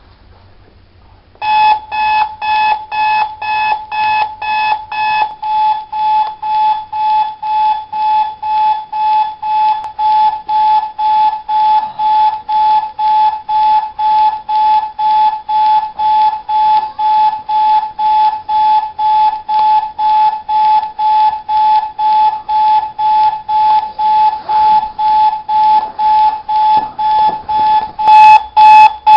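Digital alarm clock beeping: a single high beep repeating about twice a second, starting about a second and a half in and getting louder near the end.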